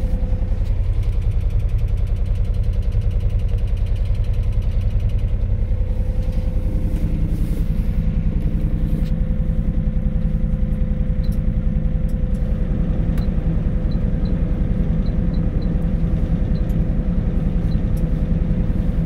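John Deere 35D mini excavator's diesel engine idling steadily, heard from inside the cab, with a thin steady whine over it. In the second half come about nine short high beeps as the climate-control panel's buttons are pressed.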